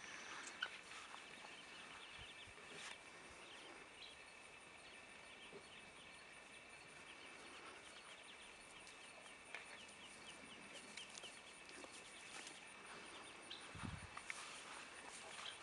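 Faint, continual high peeping of Muscovy ducklings: many short peeps following one another. A soft low bump comes near the end.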